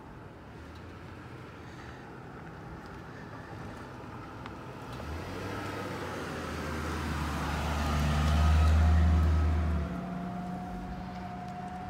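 A motor vehicle passing by. Its low engine hum grows louder over several seconds, peaks about nine seconds in, then drops away quickly.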